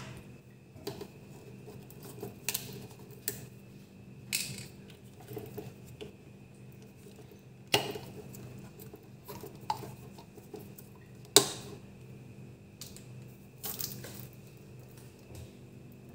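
Cutlery clinking and scraping on a plate during a meal: scattered light taps, with two sharper knocks about eight and eleven seconds in, over a steady hum.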